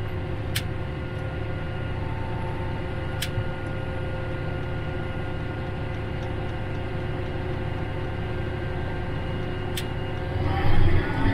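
John Deere tractor's diesel engine running steadily as the tractor drives along a snowy trail, with a steady hum and a few sharp clicks. It grows louder near the end.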